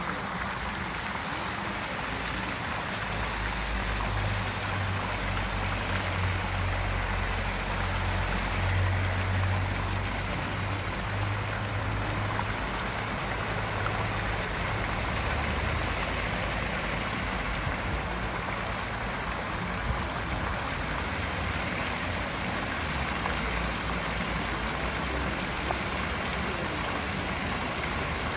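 Fountain jets splashing into a stone basin: a steady rush of falling water. A low rumble sits under it for the first half.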